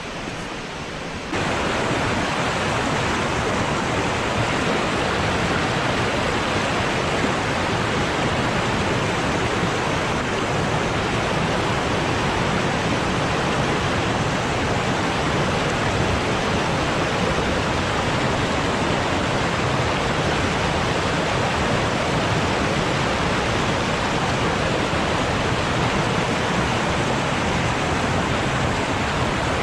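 Steady rushing of a waterfall's water, which becomes suddenly louder about a second in and then holds even.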